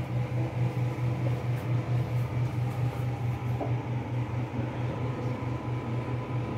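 Ventilation machinery humming: a low, steady drone with a fast throb, about five pulses a second.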